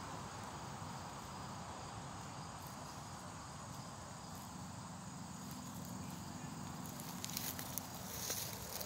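Crickets chirring faintly and steadily. Near the end, dry leaves crackle underfoot.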